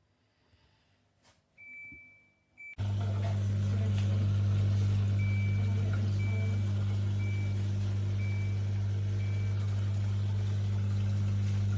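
Mini countertop dishwasher starting up: after a short beep, its motor cuts in suddenly with a loud, steady low hum about three seconds in and keeps running, with a faint high tone coming and going.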